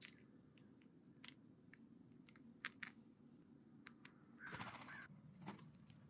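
Faint, irregular clicks and taps of a California Scrub-Jay pecking at seeds and peanuts on a wooden stump feeder. A longer, louder scratchy burst comes about two-thirds of the way in.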